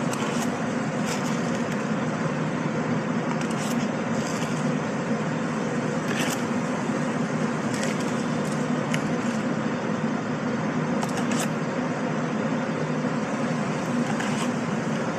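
Rooftop ventilation machinery running with a steady hum. Over it come a few short scrapes and clicks as a gloved hand works granular oil absorbent through an oily puddle on the roof membrane.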